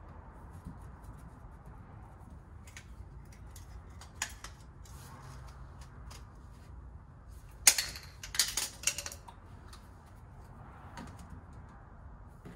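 White PVC pipe fittings being handled and fitted together by hand: a sharp plastic click a few seconds in, then a loud cluster of clicks and clatters around the middle, over a low steady background noise.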